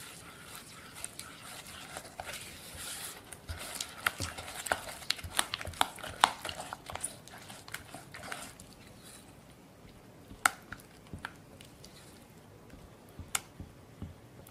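Silicone spatula mixing cream cheese and sugar in a glass bowl: wet squishing and scraping with quick clicks against the glass, busiest in the first half, then a few single sharp clicks.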